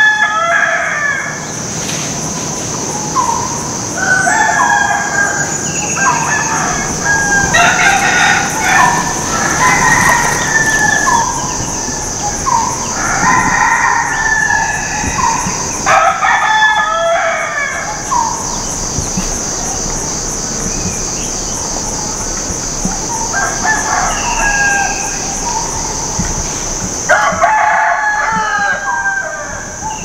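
Roosters crowing again and again, their calls at times overlapping, with a steady high-pitched drone underneath.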